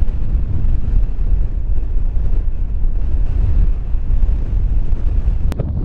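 Strong wind buffeting the microphone of a camera on a moving bicycle, a loud, steady low rumble with no let-up. A single short click comes near the end.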